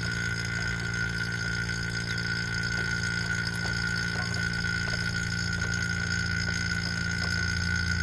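HVAC vacuum pump running with a steady hum, evacuating a mini-split's copper refrigerant lines while still drawing air in through a flare nut that is only hand-tight.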